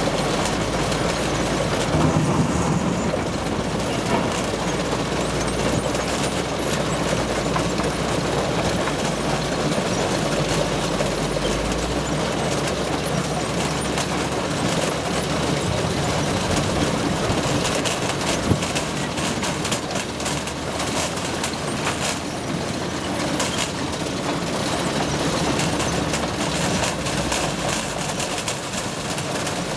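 Sugar beet rescreener running: its conveyors and vibrating shaker give a constant mechanical din, with a dense clatter of knocks as beets drop off the end conveyor into a truck.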